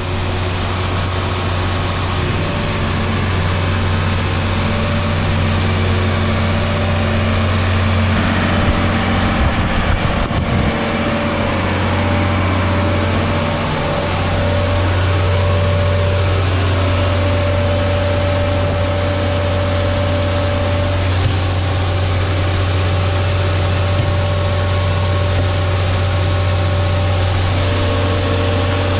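Heavy machinery running steadily: a loud, deep, even hum with a hiss above it, wavering slightly partway through.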